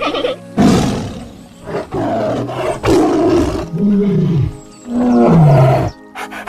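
Tiger roaring and growling: a sudden loud roar, a few rough growls, then two long moaning roars whose pitch rises and then falls. The sound breaks off abruptly near the end.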